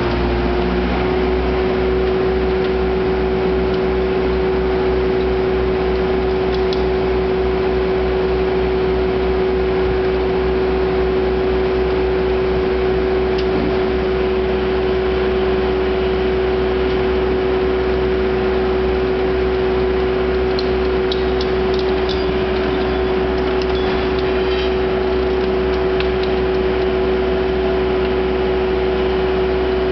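MAC 1850 scrap baler's hydraulic power unit running steadily: a constant whine over a low hum, with a few light clicks past the middle.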